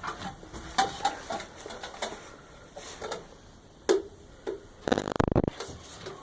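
Sheet-tin canteen parts being handled and positioned for soldering: scattered light clicks and taps of tinware, a sharper tap just before four seconds, and a brief rapid rattle about five seconds in.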